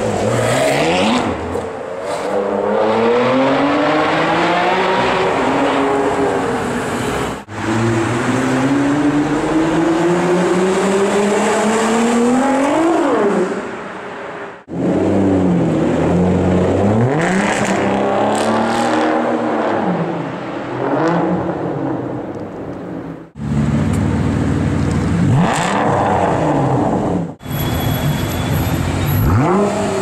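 Supercar engines, a Ferrari and an Aston Martin among them, accelerating hard and revving, pitch climbing through the gears and rising and falling with blips of the throttle. The sound changes abruptly several times as one car gives way to another.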